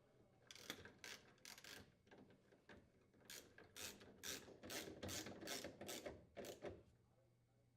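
Screws of a refrigerator's freezer lower door hinge being driven into the frame with a 5/16-inch socket tool. It makes faint, short mechanical strokes: a few scattered ones, then a steady run of about two to three a second that stops about a second before the end.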